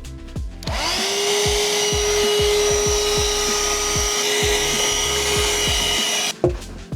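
Small vacuum cleaner switched on, spinning up quickly to a steady whine with a loud hiss of air for about six seconds, then switched off, with a short knock just after; background music plays underneath.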